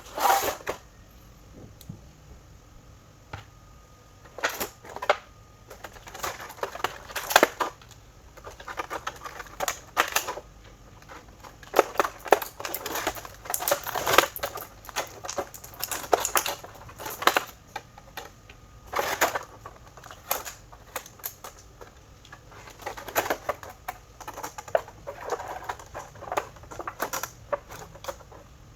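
Toy packaging being unboxed by hand: plastic and cardboard crinkling and rustling in irregular bursts, with scattered clicks.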